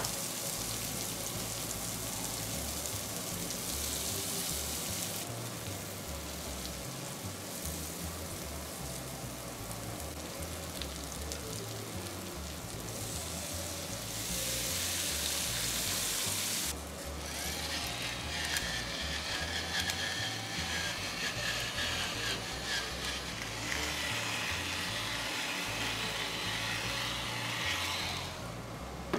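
Mushrooms, onions and bell peppers sizzling in butter on an electric smokeless grill set to high, a steady hiss. The sizzle flares louder for a few seconds about halfway through as liquid is poured over the hot grill plate.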